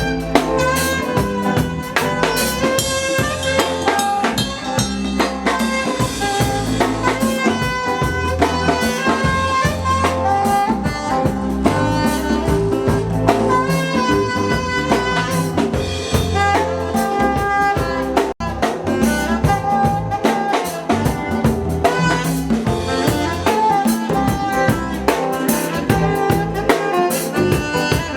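A live band playing: a drum kit keeps a beat under held melody lines, with a momentary dropout in the sound about two-thirds of the way through.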